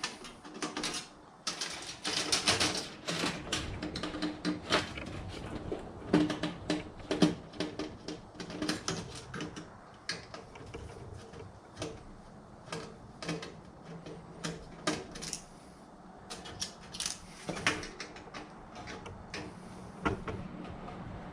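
Irregular clicking, tapping and clattering of metal and plastic parts as a desktop computer is taken apart by hand.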